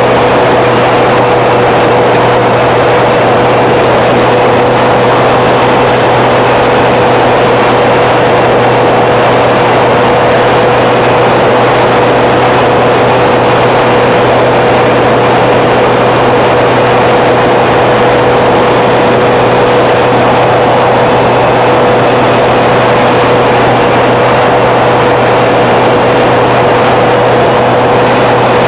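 Electric motor and propeller of an FPV model plane running at a steady setting, under a dense, even rushing hiss with a constant mid-pitched hum.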